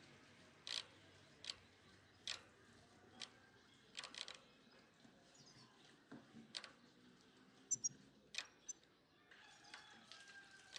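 Faint, sharp clicks and taps, about a dozen at irregular spacing, over a low steady hiss.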